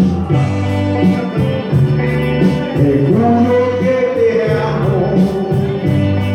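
Latin-style music playing, an instrumental stretch with a stepping bass line and sustained keyboard melody.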